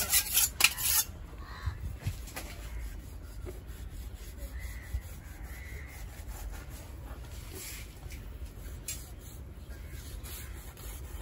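A knife blade rasping in short scraping strokes, several strong ones in the first second, then fainter, steadier scraping.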